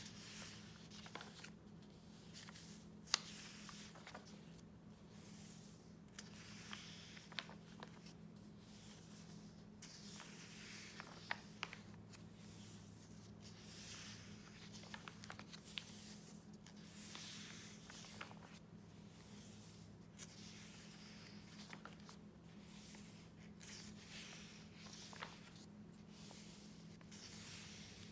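Paper pages of a bound journal being turned by hand: soft rustling sweeps and light paper clicks, one sharper click about three seconds in, over a faint steady low hum.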